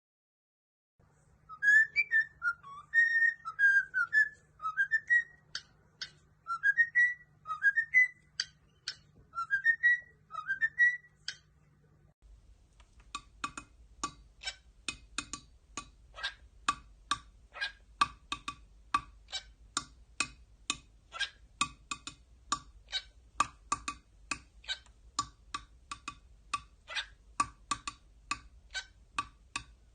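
Cockatiel whistling a phrase of short rising notes with sharp clicks between them. About twelve seconds in it gives way to a fast, even run of short ticking chirps, about two to three a second.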